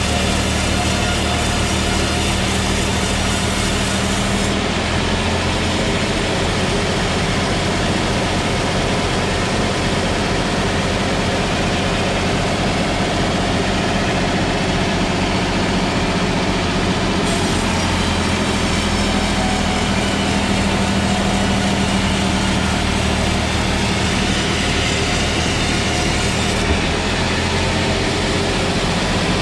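Sawmill machinery running steadily while sawing a trembesi (rain tree) log: a low engine hum under a dense sawing hiss. The highest part of the hiss falls away about four seconds in, comes back around seventeen seconds, and falls away again near the end.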